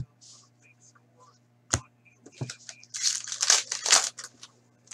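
Hockey trading cards being handled: a sharp tap or click a little under two seconds in, then a second of papery rustling and sliding as the cards are shuffled, over a faint steady electrical hum.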